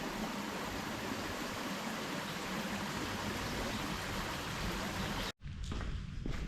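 Steady rushing of creek water over rapids. It cuts off suddenly about five seconds in, and footsteps on a trail follow.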